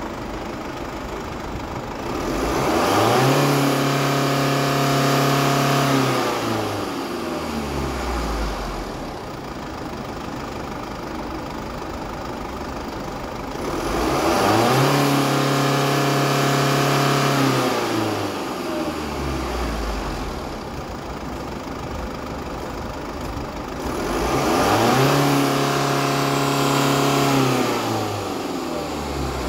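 Mercedes-Benz OM651 four-cylinder common-rail turbodiesel idling and revved up three times, about ten seconds apart. Each time it rises, holds steady at higher revs for three to four seconds, then drops back to idle.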